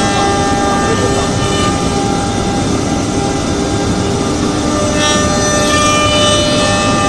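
ATC CNC router spindle running steadily at speed, a constant machine whine with several held tones over steady cutting noise.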